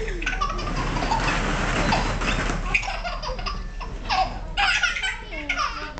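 A nine-month-old baby laughing with short, high squeals that fall in pitch, coming more often in the second half.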